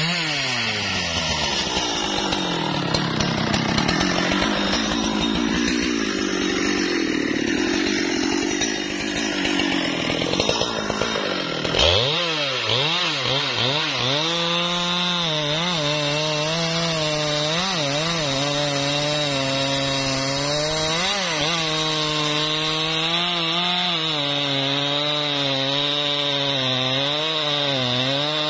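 Husqvarna 395 XP 94 cc two-stroke chainsaw cutting into wood under heavy load. About twelve seconds in it switches to a high steady engine note whose pitch dips and recovers over and over as the throttle is worked.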